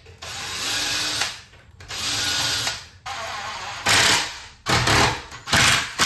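Cordless impact driver running in about six short bursts, driving the screws of a door lock latch into the edge of a wooden door.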